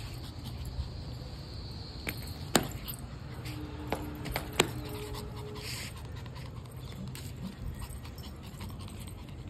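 Shih Tzu puppy whimpering briefly with short held notes near the middle, against steady low background noise. A few sharp taps come in the same stretch.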